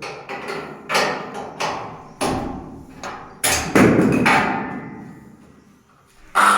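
Irregular hammer blows and knocks on metal, about nine strikes with short ringing after each, the heaviest around the middle, then dying away. A loud steady noise cuts in right at the end.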